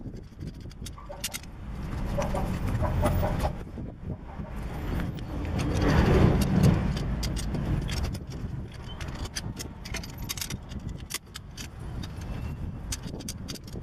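A metal hand tool clinking and scraping against a rusted rear brake caliper on a BMW E46, with many small metallic clicks. A low rumble swells and fades about six seconds in.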